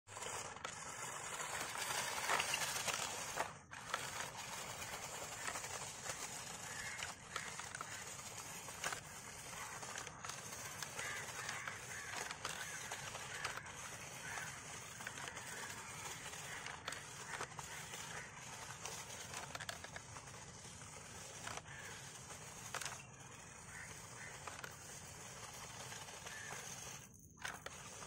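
Small electric RC off-road car driving over dry leaves, dirt and stones: motor whir with the tyres crunching, and occasional knocks as it goes over stones. Loudest in the first few seconds while the car is close, then fainter as it drives away.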